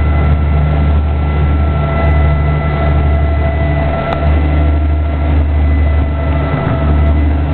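Fishing boat's engine running steadily under way while trolling: a loud, even, low drone with a faint steady high whine over it.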